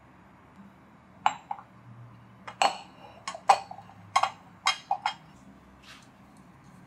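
Glass measuring jugs being handled and set down on a hard countertop: a quick run of about a dozen sharp clinks and knocks.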